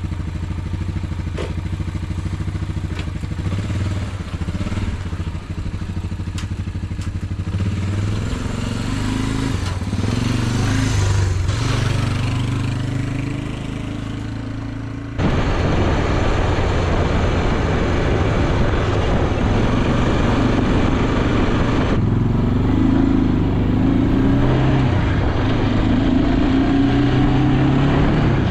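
Honda Big Red 300 quad's freshly rebuilt single-cylinder four-stroke engine pulling away and driving off, fading as it goes. About halfway through it is heard up close from on board, running steadily with its pitch rising and falling with throttle and gear changes, sounding smooth and healthy.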